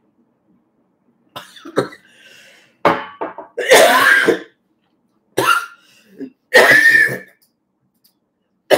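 A woman's coughing fit: a few small coughs about a second and a half in, then several louder coughs roughly a second apart.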